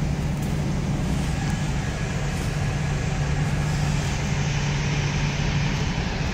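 Motor vehicle running steadily, with a constant low engine hum and road noise.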